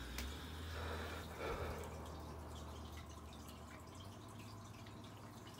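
Caramel cola being poured from a glass bottle into a plastic cup: a soft splash over the first two seconds, then faint fizzing ticks from the bubbles.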